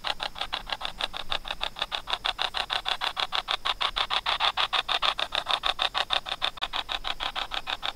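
Spirit box app on a phone sweeping through radio stations: a fast, even chop of static and radio fragments, about nine bursts a second, thin through the phone's small speaker.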